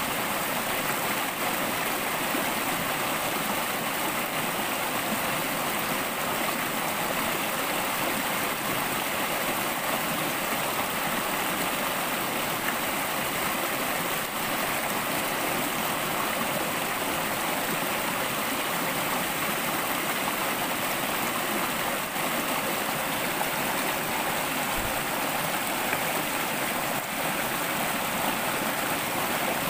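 A shallow rocky stream rushing steadily over stones and small rapids.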